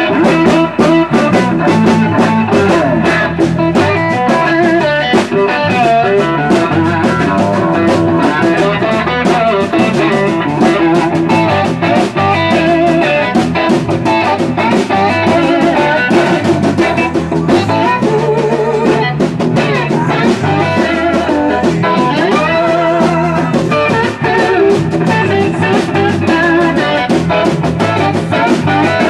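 Electric guitar playing blues-rock, performed live.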